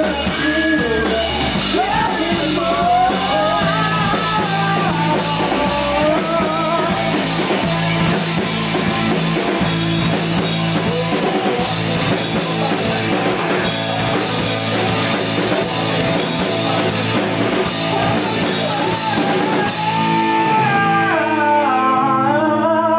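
Rock band playing live: electric guitars, bass and drum kit under a lead singer. About twenty seconds in, the drums drop out and the band holds a sustained chord while the singing goes on.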